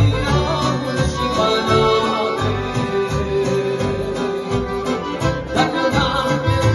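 Live piano accordion and Korg electronic keyboard playing a Romanian popular song together, over a steady bass beat from the keyboard.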